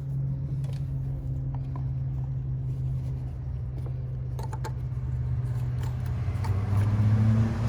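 A vehicle engine running with a steady low hum, with a few light clicks over it. The hum grows louder for about a second near the end.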